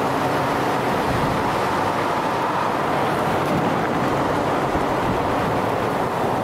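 Steady rushing wind noise on the microphone as a tornado passes nearby.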